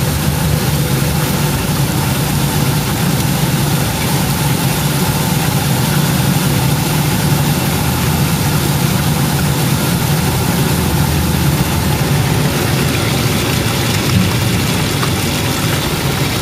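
CA-3000 bubble vegetable washer running with onions in its tank: a steady machine hum with a hiss over it, the air blower and pump driving bubbles and rolling brushes through the water.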